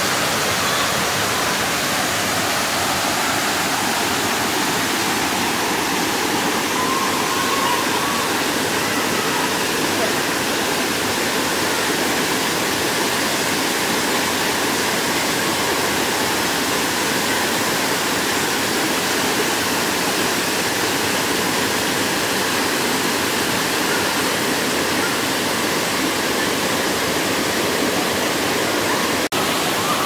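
Leimaram Waterfall: a steady, even rush of falling water that does not let up.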